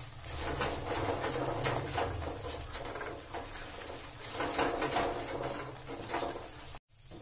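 A wooden spatula stirring and scraping thick, nearly dry gajar ka halwa around a steel kadhai in a run of quick, uneven strokes. The halwa has dried down and is stirred constantly to keep it from sticking and burning. The sound cuts out for a moment near the end.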